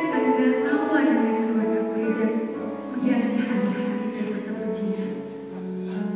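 Background music with long held notes under a wavering melody line.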